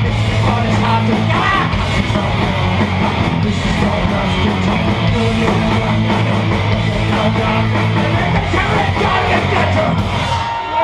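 Band playing thrash punk loud, with distorted guitar, drums and yelled vocals; the song stops a little before the end.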